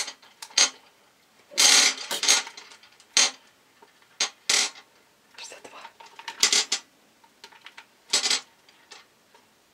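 Small hard candies poured from packets clattering into an empty stainless steel pot in several short, separate rattling bursts, the loudest cluster about two seconds in.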